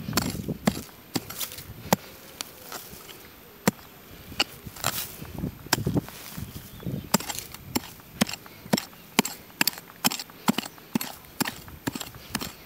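Dry grass and stalks crackling and snapping in sharp clicks as someone moves through them. The clicks come irregularly at first, then settle to about two a second in the second half.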